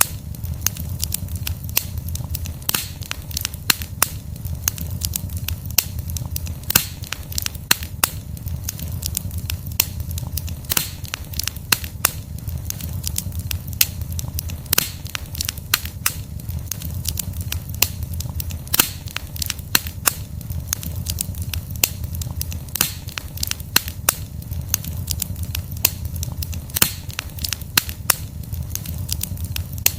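Wood fire burning, with irregular sharp crackles and pops from the logs over a steady low rumble of the flames.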